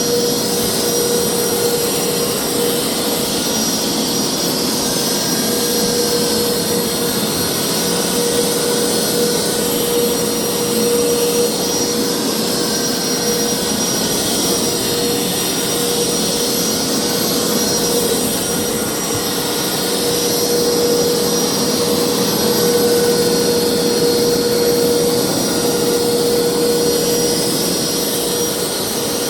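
Hoover upright carpet cleaner running steadily: a loud, even rush of suction air with a constant whine, as it washes and extracts water from carpet.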